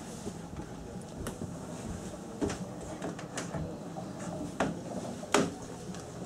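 Wooden bench panel being lifted and shifted by hand: a handful of sharp wooden knocks and clicks, the loudest about five seconds in.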